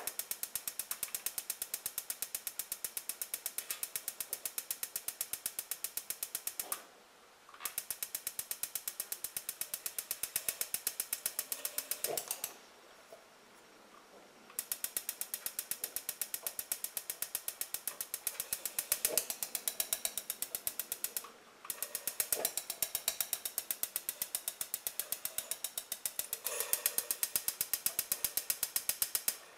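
Coleman NorthStar gasoline lantern's push-button electronic igniter held down and sparking with a rapid, steady ticking, in four long stretches broken by short pauses. The igniter is sparking at the mantle while the fuel valve is opened slowly to light the lantern.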